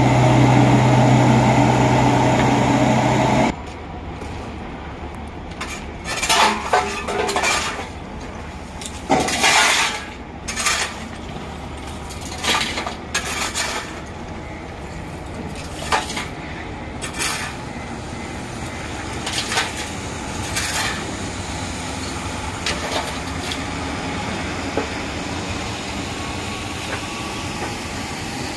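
Construction-site machinery: a nearby diesel engine runs loudly and steadily for the first three and a half seconds, then cuts off abruptly. A steady low machinery rumble follows, broken by scattered clanks and bangs, most of them between about six and seventeen seconds in.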